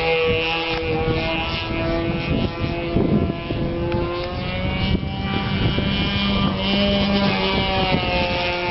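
OS 46 LA two-stroke glow engine of an RC model plane running in flight, its pitch drifting up and down as the plane manoeuvres. Wind rumbles on the microphone underneath.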